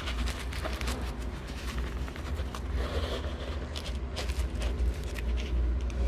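Low steady rumble with scattered light clicks and knocks: workshop background noise and the handling noise of a handheld phone being moved around under a car on a lift.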